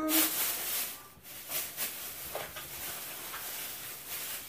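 Plastic shopping bag rustling and crinkling as items are rummaged through and pulled out. It is loudest in the first second, then continues more softly with small irregular crackles.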